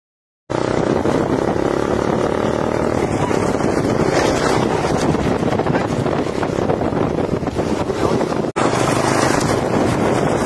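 Loud, steady rush of wind buffeting the microphone over a running vehicle. It starts abruptly about half a second in and drops out for an instant near the end.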